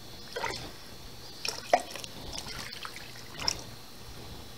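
Home-canned chicken broth poured from a glass quart jar into a slow cooker. It is heard as a few quiet, scattered drips and splashes rather than a steady stream.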